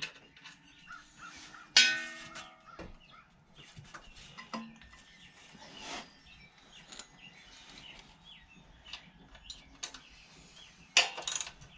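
Scattered metal clinks and taps from hand tools and engine-mount bolts being worked by hand. About two seconds in comes one loud ringing metal clang. Near the end a socket ratchet starts clicking.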